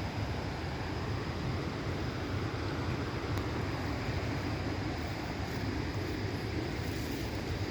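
Steady rumbling rush of a waterfall or fast river, an even noise with no breaks.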